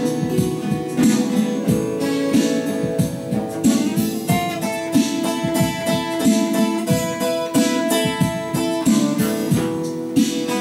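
Twelve-string acoustic guitar being strummed and picked in a steady rhythm, its chords ringing.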